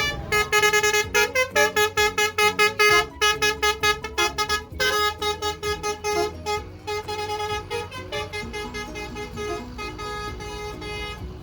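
Bus basuri horn, a multi-tone musical horn, playing a melody: a quick run of short pulsed notes at first, then longer notes, a little quieter, through the second half.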